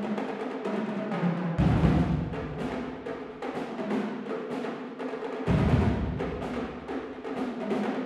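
Marching drumline playing a rapid cadence of snare and tenor drum strokes. Deep bass drum hits come in about a second and a half in, and again about five and a half seconds in.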